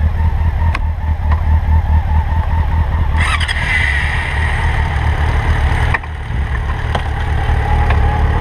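Sport motorcycle engine idling close by, a steady low pulse. From about three seconds in, another motorcycle pulls away past it for a few seconds, adding a louder higher engine and tyre noise.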